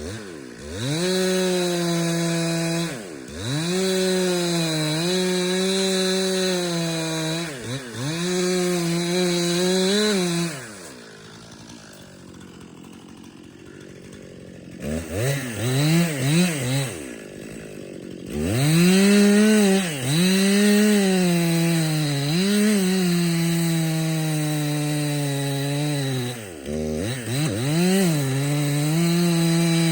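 Gas chainsaw cutting bitternut hickory, held at high revs in the cut with the pitch dipping sharply every few seconds as it is eased off and pulled back up. About eleven seconds in it drops to idle for a few seconds, then is revved several times before going back to a steady cut.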